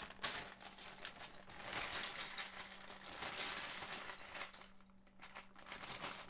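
Hands rummaging through a bag of loose LEGO pieces: a steady rustle of the bag with many small clicks and rattles of plastic bricks knocking together.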